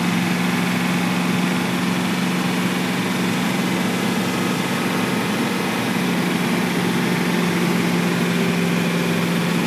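Ford 7.3 L IDI V8 diesel in a 1989 Ford E-350 van, heard from inside the cab while cruising at a steady road speed of about 55–60 mph. It gives a steady low drone that holds one pitch, running smoothly.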